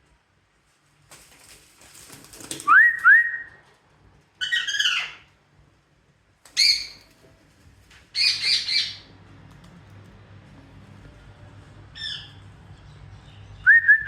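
Pet parrots squawking: a series of loud harsh screeches with short gaps, and sharp rising whistled notes about three seconds in and again near the end.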